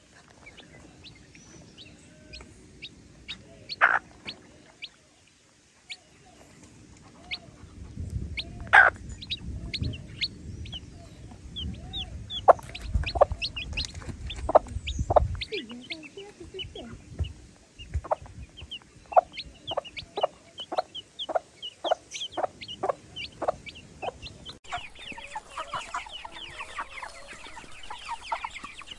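Young chicks peeping in short, high calls, with a hen clucking among them and a low rumble for several seconds in the middle. Near the end the sound becomes a dense, unbroken chorus of many chicks peeping together.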